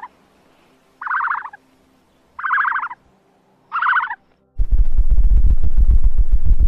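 A buzzy, rasping animal call, each about half a second long, heard three times about a second and a half apart. About two thirds of the way in, loud music with a fast beat cuts in and is the loudest sound.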